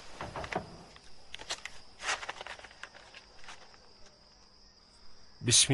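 Crickets chirring steadily, with a few soft rustles and handling sounds as a parchment scroll is unrolled. A man's voice begins right at the end.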